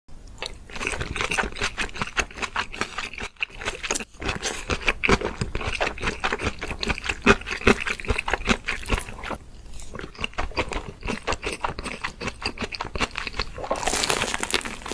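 Close-up chewing of crunchy food: a dense run of quick, irregular crunches and bites. Near the end a rustling, crinkly noise joins in.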